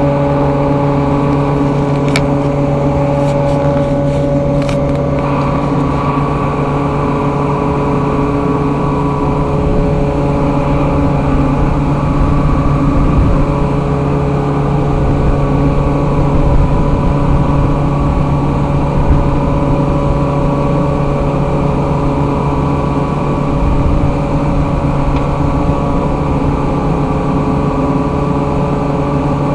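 Air compressor running steadily with a constant low hum. A few light clicks in the first few seconds.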